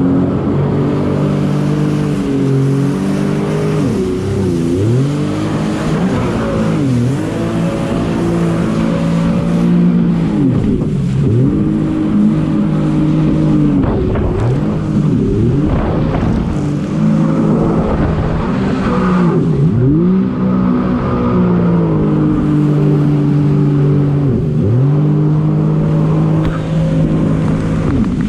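Jet ski engine running at speed, its note dipping sharply and climbing back again every few seconds.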